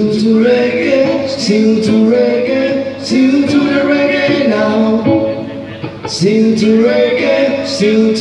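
A man sings a reggae song live into a microphone over electric guitar and a hand drum, whose slaps keep an even beat. The singing breaks off briefly about five seconds in, then picks up again.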